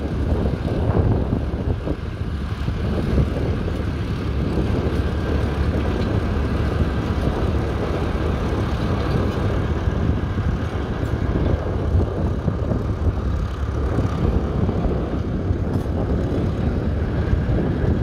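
Fordson Model N tractor's four-cylinder side-valve engine running steadily under load while pulling a plough through the soil.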